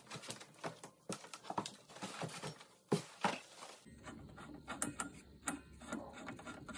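Plastic wrap rustling, with irregular handling knocks, as a mini gas pocket bike is pulled out of its packaging. From about four seconds in, small sharp clicks from a folding chrome footpeg being worked by hand.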